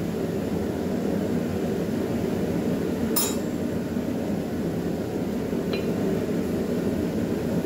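A sharp metallic clink of steel blacksmithing tools about three seconds in, and a fainter tap near six seconds, over a steady low rushing noise.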